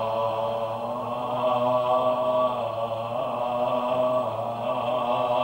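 Japanese Buddhist liturgical chanting by a low male voice, drawing out long, held tones that shift slowly in pitch.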